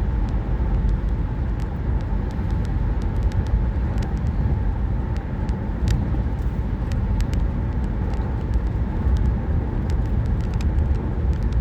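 Steady low rumble of a car driving, a constant road and engine noise with a few faint small clicks.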